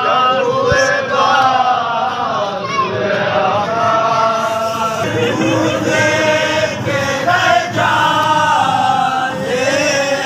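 A crowd of men chanting a noha, a Muharram lament, together in one long held melody.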